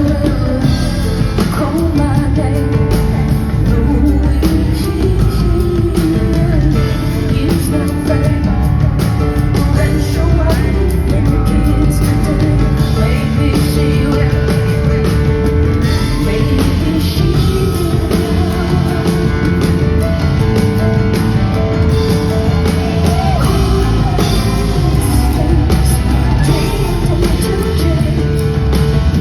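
Live concert recording of a female singer performing a rock song, voice over loud, continuous instrumental accompaniment.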